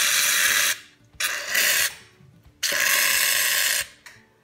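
Aerosol can of Barbasol shaving cream spraying foam in three hissing spurts, the last and longest about a second.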